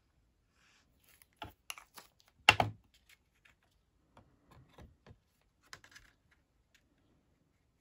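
Cardstock being handled and pressed onto a card base on a craft desk: scattered light clicks and paper rustles, with one louder tap about two and a half seconds in.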